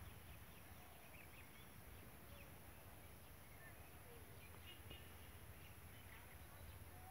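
Near silence: quiet rural outdoor ambience with faint, scattered bird chirps.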